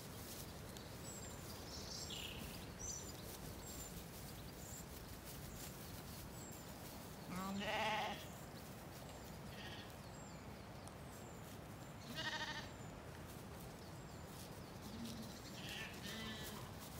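Zwartbles sheep bleating twice, about seven and twelve seconds in, each a wavering call under a second long, over a steady outdoor haze with faint high bird chirps.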